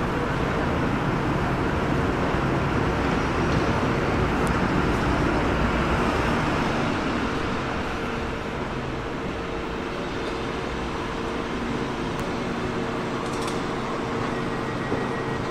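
A train rolling slowly through a station: a steady rumble with a faint steady hum that eases off slightly about halfway through.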